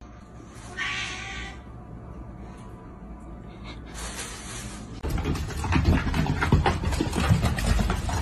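A ginger kitten meows once, a short call about a second in. Later a louder stretch of rapid knocks and rustling sets in.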